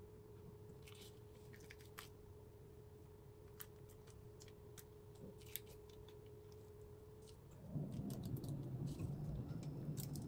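Faint, scattered clicks and crinkles of fingers pressing and folding puff pastry on baking parchment, over a faint steady hum. About three-quarters of the way through, a louder low hum starts up and keeps going.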